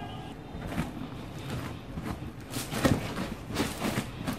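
Hands pressing, squeezing and gathering crumbly egg-and-flour wonton dough on a silicone pastry mat: irregular soft scraping and crumbling strokes, the loudest about three seconds in. The dough is still dry and crumbly, in the first stage of kneading.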